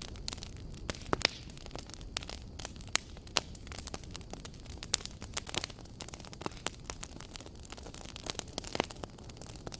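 Campfire crackling: irregular sharp pops and snaps of burning wood, a few louder than the rest, over a steady low rumble of the flames.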